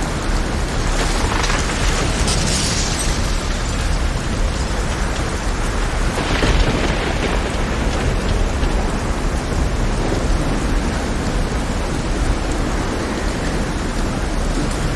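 Heavy rainstorm: a dense, steady hiss of rain over a constant deep rumble. The hiss swells louder about a second in and again around six seconds in.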